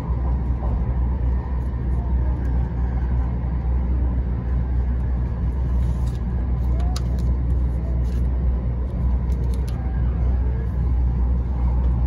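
Steady low rumble of a moving passenger vehicle, heard from inside the cabin.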